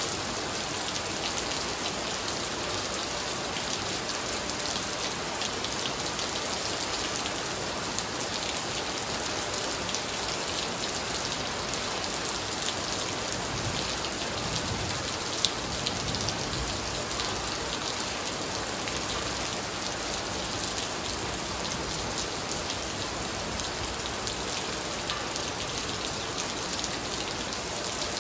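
Heavy rain falling steadily onto a wet tiled patio, a constant hiss with the dense patter and splash of drops on the tiles. One sharp tap stands out about halfway through.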